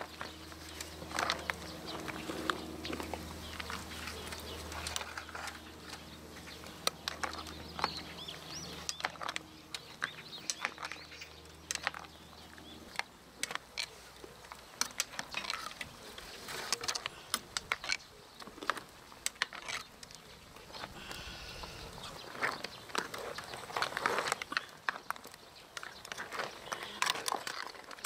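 Metal ladle and spoon stirring a seafood stew in a wide cast-iron cauldron-lid pan: clam shells and other shellfish clacking against each other and the metal in irregular clicks and knocks. A low steady hum runs under it and stops about halfway through.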